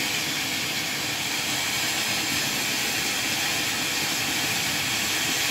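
Steady hiss of a ground firework fountain spraying sparks.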